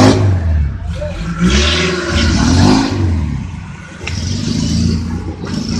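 A small off-road 4x4's engine revs up and down repeatedly as the vehicle pushes through a muddy, rocky stream bed.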